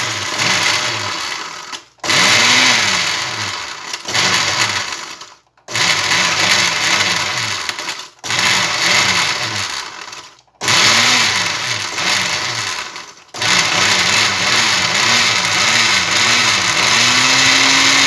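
Walita blender motor grinding dry bread into breadcrumbs, run in short pulses of two to three seconds with five sharp stops, then held on continuously near the end. The motor's pitch rises and falls as the chunks of bread load the blades.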